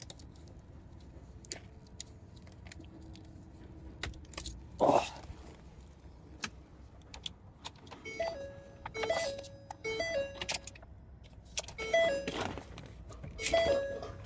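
Keys jangling and clicking at the ignition of a 2019 Ford F-250, then from about eight seconds in the truck's dashboard warning chimes sound in repeated short groups of stepped tones. The engine does not crank or start: a key no-start.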